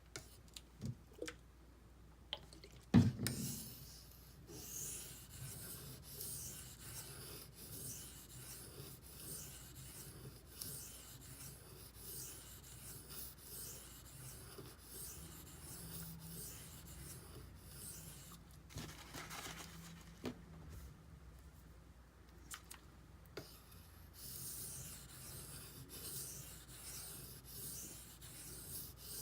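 D2 steel blade of a Benchmade Griptilian folding knife being stroked back and forth across a sharpening benchstone in a steady rhythmic scrape. A few light clicks and one sharp knock come just before the strokes begin, and the strokes pause for a few seconds in the middle.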